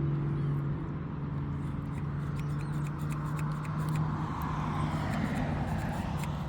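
A steady low engine hum, with a rushing noise that swells about four to five seconds in, and scattered light clicks.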